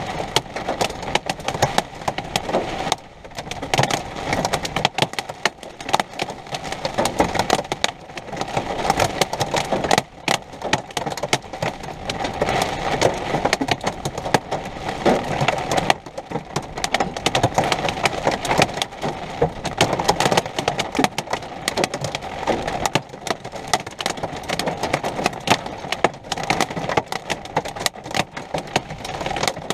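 Heavy storm rain pelting down: a dense, uneven patter of countless small impacts with a surging, gusty loudness.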